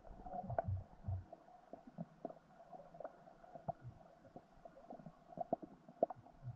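Underwater sound picked up by a submerged camera, muffled and dull: irregular low thumps and scattered faint clicks and ticks, with a heavier cluster of thumps about a second in.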